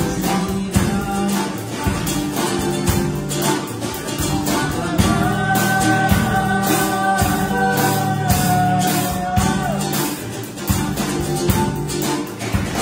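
Live band music: an acoustic guitar strums a funky rhythm riff over a drum kit, with a harmonica played into a microphone. About five seconds in, the harmonica holds one long note for several seconds, which bends down as it ends.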